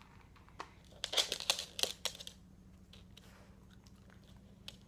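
Yorkshire terrier crunching and chewing a small dog treat: a quick run of crunches about a second in, then a few faint clicks.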